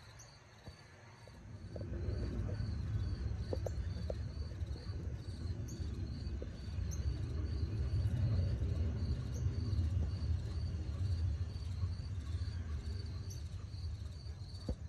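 Outdoor ambience: an insect chirping in a faint, evenly repeating high pulse over a steady low rumble, with a few short high chirps scattered through.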